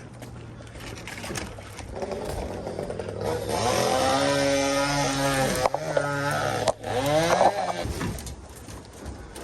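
Chainsaw revving up and running at high speed for a few seconds, dropping briefly about halfway through, then revving again and falling off near the end. A low steady engine hum runs underneath.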